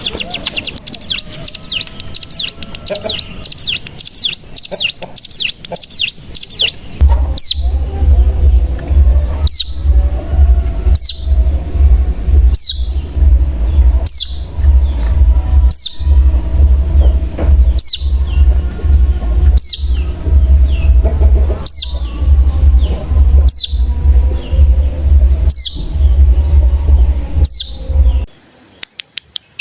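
Ciblek gunung (cigun) singing: a fast, chattering high trill for the first several seconds, then a series of sharp, high calls that fall steeply in pitch, repeated about every one and a half to two seconds. A loud, steady low hum runs beneath the calls from about seven seconds in and stops shortly before the end.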